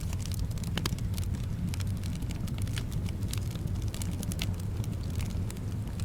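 Wood fire in a fireplace crackling, with many small irregular pops. Beneath it is a steady low rumble of soft wind.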